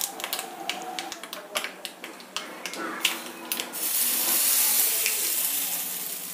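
Tempering of mustard seeds, curry leaves and urad dal in hot oil in a small steel ladle, crackling with sharp pops. A little under four seconds in, the hot oil is poured onto onion chutney and gives a loud sizzling hiss that slowly fades.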